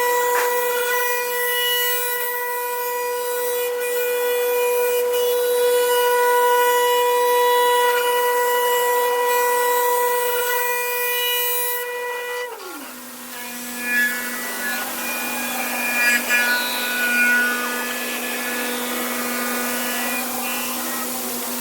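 Glass CNC machining centre's spindle whining at a steady pitch as it grinds glass. About twelve seconds in, the whine drops quickly to a much lower pitch and runs on, with irregular rubbing and scraping of the tool against the glass edge.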